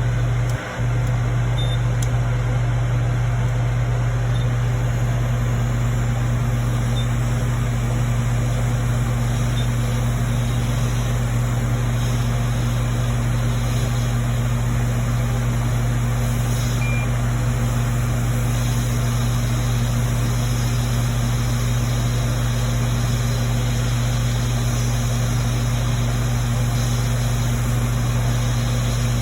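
Hot-air rework heat gun blowing steadily, a loud low hum with an even hiss over it, as it melts the solder under the LED backlight driver chip on a MacBook Air logic board.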